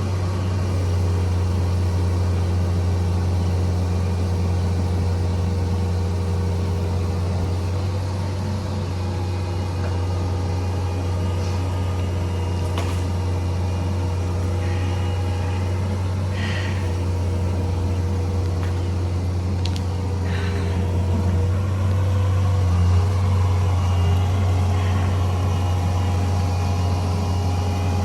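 Bobcat 341D excavator's diesel engine running steadily with a deep, even hum and steady tones above it, with a few brief higher-pitched noises from the work partway through.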